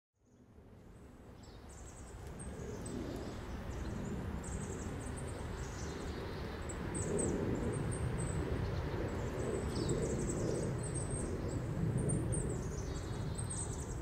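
Backyard ambience fading in over the first few seconds: a steady low rumble with many short, high chirps from small birds throughout.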